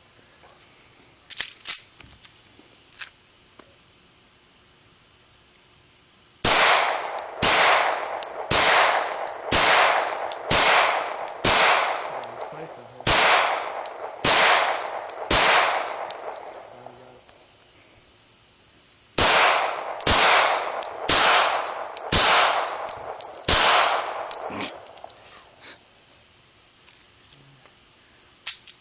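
Smith & Wesson Model 59 9mm semi-automatic pistol firing about sixteen shots, each followed by a ringing echo. The shots come at roughly one a second in two strings, about ten and then six, with a pause of some four seconds between. Two light clicks of handling come before the first shot.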